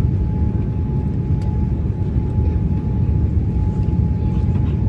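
Boeing 787-9 airliner heard from inside the passenger cabin while descending on approach: a steady low rumble with a faint steady whine on top.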